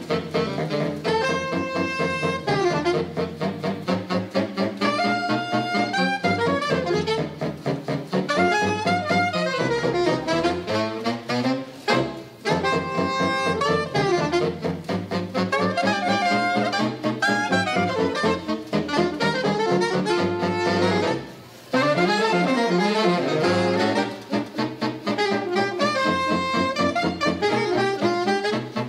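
Big band playing jazz live, the saxophone section carrying the line over brass and rhythm section. The whole band stops for a short break about two-thirds of the way through, then comes back in.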